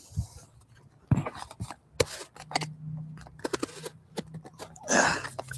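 Plastic end cap being twisted and worked loose from a cardboard shipping tube: scattered clicks and knocks with short scraping rubs, the longest about five seconds in.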